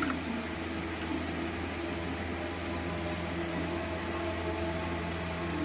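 Steady low machine hum with a few faint, steady higher tones, like a fan or motor running in a small room. There is a faint click at the very start.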